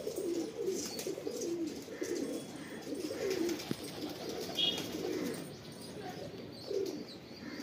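Domestic pigeons cooing, low warbling coos one after another, with a brief higher chirp a little past halfway.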